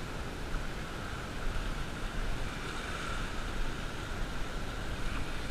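Small surf washing up onto a sandy beach, a steady hiss of breaking water with wind rumbling on the microphone.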